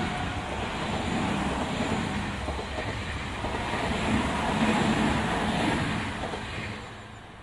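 A Tobu 50050-series electric commuter train passing: a steady rumble of wheels on rails that swells and then fades near the end as the last car goes by.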